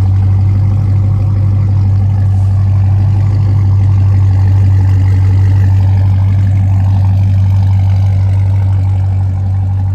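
Dodge Charger Scat Pack's 6.4-litre HEMI V8 idling steadily, a loud, even low hum.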